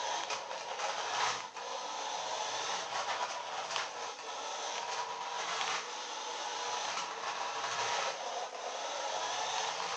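Small electric motor and plastic gears of a toy radio-controlled car running as it drives across a wooden floor, with its tyres on the boards. The whirr swells and drops as it is driven.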